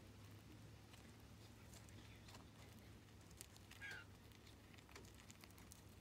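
Near silence, with faint scattered clicks of birdseed shifting and being cracked as a chipmunk feeds from a metal bowl, over a low steady hum. A short high chirp sounds about four seconds in.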